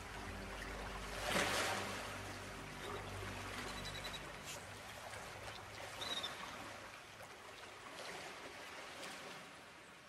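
Soft trickling, water-like noise with a brief louder swoosh about a second and a half in. A few faint high chirps come through it, while low held tones fade out over the first half.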